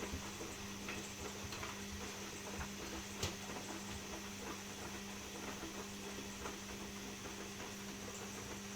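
Washing machine running with a steady low hum, with scattered light ticks and taps over it and one sharper click about three seconds in.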